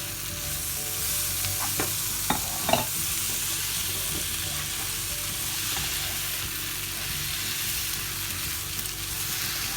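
Chopped tomatoes and onions sizzling in hot oil in a pan as they are stirred, a steady frying hiss. A spoon knocks against the pan a few times about two to three seconds in.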